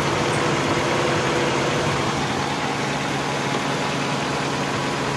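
Suzuki Cultus engine idling steadily with the AC running, the newly fitted Denso Duet compressor engaged again just after tripping, and the electric condenser fan running.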